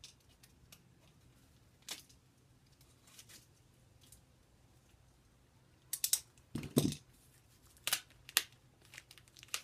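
Packing tape and plastic wrapping being worked loose by hand: scattered short crackles and snaps, with a busier cluster a little past the middle.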